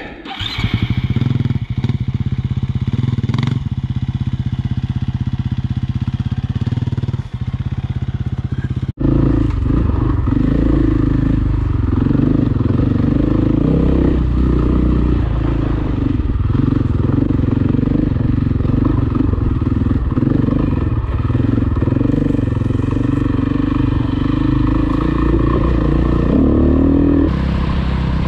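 Dirt bike engine running. It holds steady at low revs for the first several seconds, then after an abrupt cut it works harder, with revs rising and falling as the bike is ridden along a trail.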